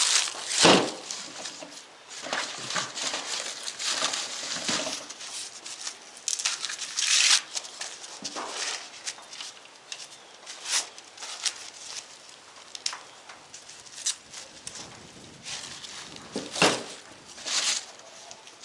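Dry corn husks crinkling and tearing as they are peeled back by hand from ears of dried dent corn, in irregular rustling handfuls with a few sharper rips about a second in, around the middle and near the end.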